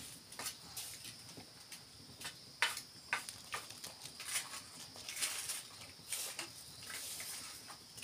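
Wood cooking fire crackling and snapping, with irregular sharp pops as sticks burn and are pushed into the flames, over a steady high-pitched background tone.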